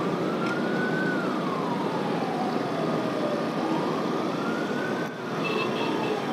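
Electronic siren in a slow wail, its pitch rising and falling about every four seconds, over a steady rush of wind and road noise.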